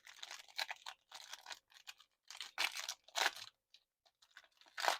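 A trading card pack's wrapper crinkling and tearing as it is ripped open, in irregular crackly bursts.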